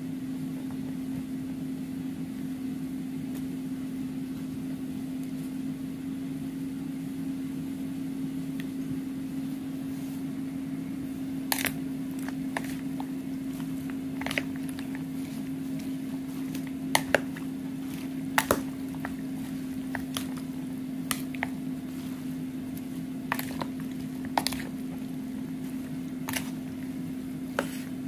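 Spoon clicking and tapping against the bowl while a glass noodle salad is tossed, with short scattered knocks starting about halfway through, over a steady low hum.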